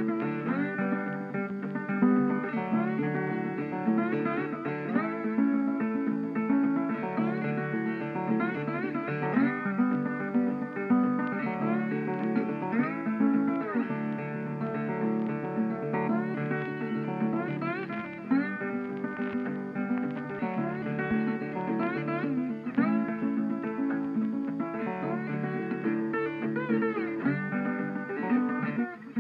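Background music: acoustic guitar playing a tune, with frequent notes that slide up in pitch.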